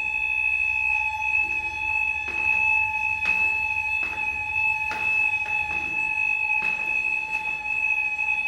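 A tower block's central fire alarm sounding a continuous, steady tone at two pitches, one high and one lower, on a false alarm. A few faint knocks sound during it.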